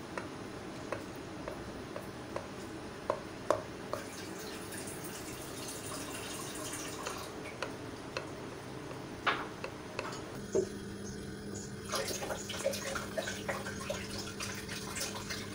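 Small clicks of a knife tapping against a glass serving dish while cutting into a layered chocolate biscuit dessert, over a steady background hiss. A low steady hum comes in about ten seconds in.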